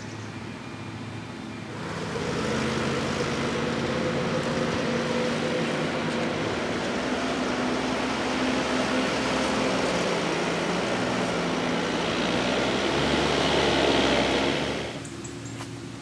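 Fendt 716 tractor towing a Kaweco silage trailer on a road: engine and tyre noise swell to a peak near the end, then drop away sharply. It is framed by the steady engine hum of a Krone Big X 700 forage harvester's V8 at work in the field, for about two seconds at the start and again in the last second.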